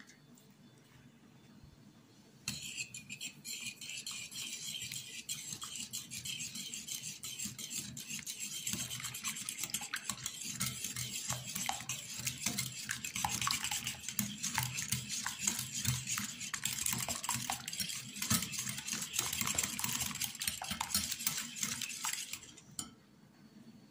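Wire balloon whisk beating eggs and sugar in a ceramic bowl: rapid, continuous clicking and scraping of the wires against the bowl. It starts a couple of seconds in and stops shortly before the end.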